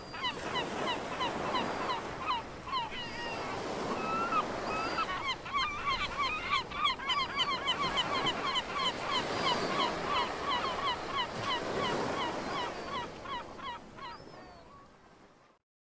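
A flock of gulls calling, many short, rapidly repeated overlapping cries over a steady wash of harbour ambience, fading out near the end.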